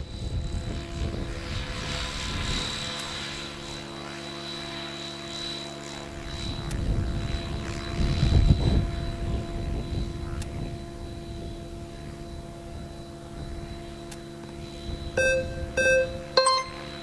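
Align T-Rex 700 DFC HV electric RC helicopter in 3D aerobatic flight: a steady motor and rotor whine over the rush of the main blades, swelling around the middle. Short music notes come in near the end.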